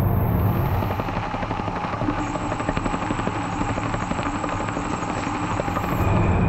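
CNC lathe running a parting cut through a Waspaloy bar: a steady machining hiss with fine crackling throughout. A thin high steady whine joins about two seconds in.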